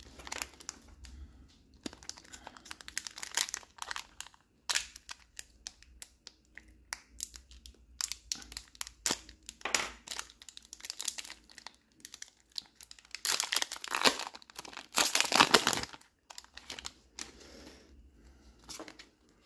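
Foil wrapper of a Magic: The Gathering collector booster pack crinkling and tearing as it is opened and handled, in uneven fits of crackling. The loudest crinkling comes about two-thirds of the way through.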